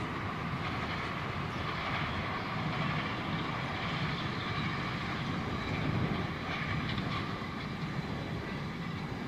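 Container wagons of a long freight train rolling past over the rails: a steady rumble of wheels on track.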